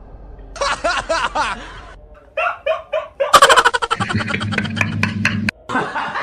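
A string of short comedy meme sound-effect clips of laughing and snickering, one after another, with music under some of them.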